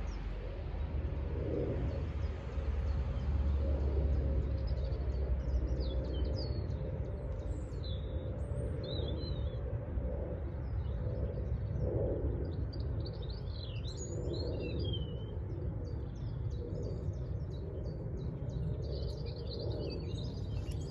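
Small birds chirping and twittering, most busily from about a quarter of the way in, over a steady low background rumble.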